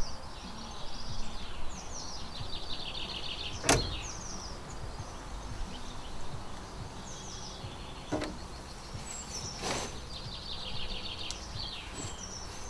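Birds singing and chirping outdoors, with two sharp knocks about four and ten seconds in, the first the loudest.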